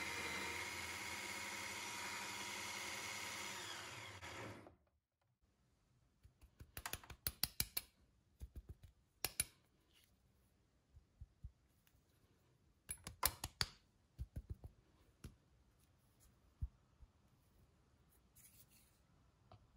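Baratza Sette 270 conical burr coffee grinder running steadily on a timed dose, winding down and stopping about four and a half seconds in. Then scattered clicks and knocks as the filled portafilter is lifted out of the grinder's forks and handled.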